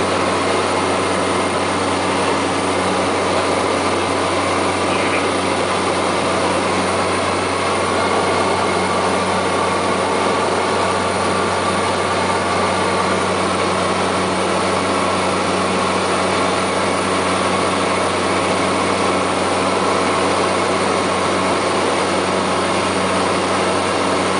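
Single-engine light airplane's piston engine and propeller running steadily in cruise, heard from inside the cockpit as an unchanging low hum with its overtones over a constant rush.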